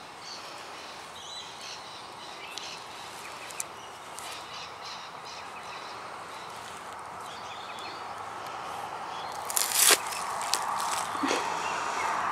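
Rural outdoor ambience: a steady background hiss with scattered bird calls, and a sharp knock or handling bump about ten seconds in.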